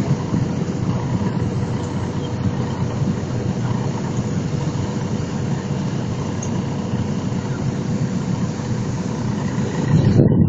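Steady drone of a river ferry's engines underway, with a faint steady hum over it. Near the end it turns into a louder, muffled rumble.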